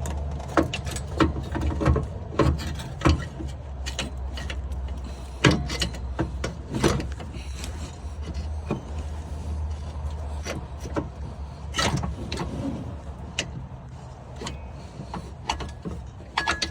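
Heavy alternator being worked down into place in a cramped engine bay, clunking and scraping against the engine and brackets with irregular sharp metal knocks. A steady low hum runs underneath.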